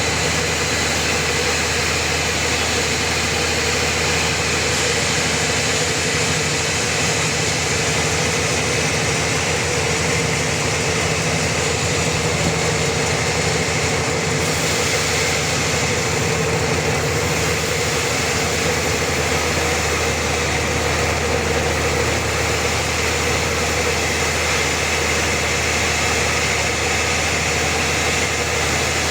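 Sawmill machinery running steadily, an even mechanical drone with no pauses.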